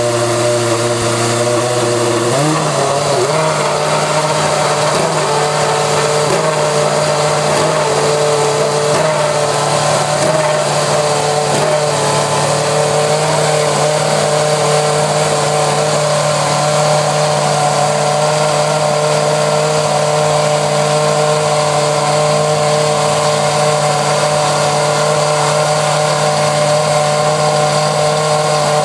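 Lotus R31 Formula One car's Renault V8 engine idling at a steady pitch. Its pitch steps up once about two and a half seconds in and wavers for several seconds before settling.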